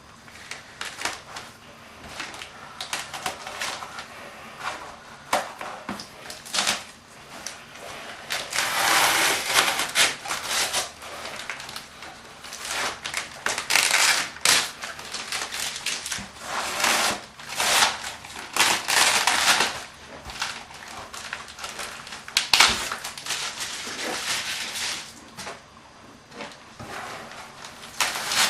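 Adhesive tape being peeled off a cardboard kit box and the foam airplane parts taped inside it, in irregular ripping, crackling bursts mixed with handling rustles.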